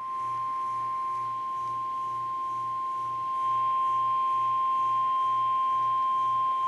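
NOAA Weather Radio 1050 Hz warning alarm tone: one steady unbroken beep, a little louder from about three seconds in. It is the attention signal that announces an incoming warning broadcast.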